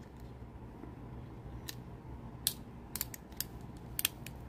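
Scattered light metallic clicks from a Ruger Bearcat .22 LR single-action revolver as its cylinder and loading gate are worked by hand during manual loading and unloading, over a faint steady hum.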